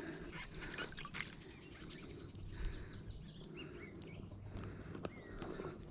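Faint rustling and clicking of handling, with a few short bird chirps behind it.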